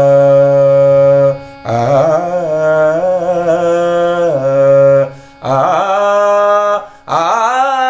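A man singing Hindustani alaap in long held notes over a steady drone. There are four phrases with short breaths between them: the second steps up and down in pitch before settling, and the last slides up into its held note.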